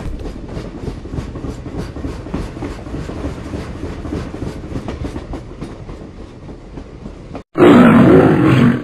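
A low rumbling sound effect with a faint regular pulse, cut off about seven and a half seconds in by a sudden, much louder growling roar.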